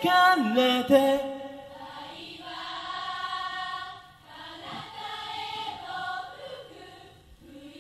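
Male rock vocalist singing live into a microphone, strongest in the first second and a half with a held, wavering note. Then comes a quieter passage of layered, choir-like voices holding long notes, with no drums.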